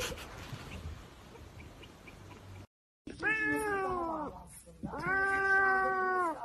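A cat yowling: two long, drawn-out meows, the first sagging slightly in pitch, the second held steady.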